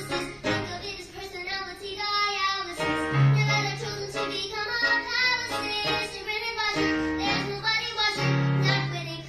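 A young female voice singing a song in a small venue, with instrumental accompaniment holding low sustained notes beneath the melody.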